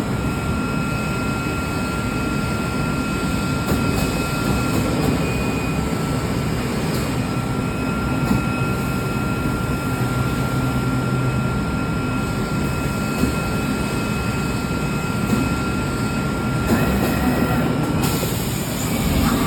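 CNC fabric cutting machine running while it cuts a section of fabric on its conveyor table: a steady mechanical noise with a low hum and a thin high whine. Near the end the whine briefly steps up in pitch, and then a hiss rises.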